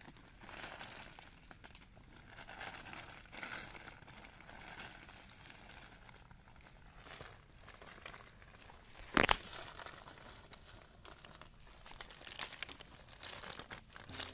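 Live freshwater snail shells clicking and clattering against each other, with the woven plastic tarp under them crinkling, as hands sift through a heap of snails. One sharper knock stands out about nine seconds in.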